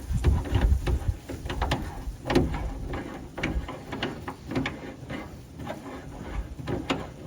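Irregular light metallic clicks, knocks and rattles from a steel mounting bracket and its bolt being handled, repositioned and threaded by hand against the truck's bed wall.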